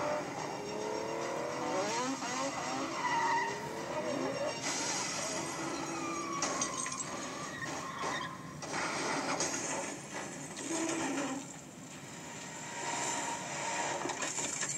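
A car-chase film soundtrack played through a laptop speaker and picked up in the room: car engines revving with pitch sliding up and down and tyres squealing. Harsher crash-like noise follows from about a third of the way in.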